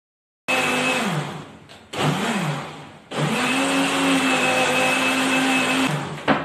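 Electric countertop blender blending celery juice, run in three bursts, the last and longest about three seconds. The motor's pitch sags and climbs back as it chews through the celery, then holds steady before it cuts off. A short click follows near the end.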